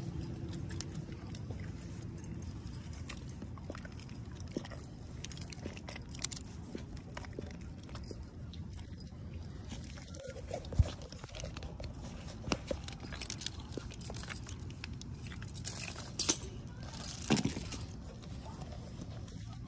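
An American Pit Bull Terrier licking and chewing raw meat on concrete, while the heavy metal chain attached to its collar clinks and rattles. A few sharper clicks stand out in the second half.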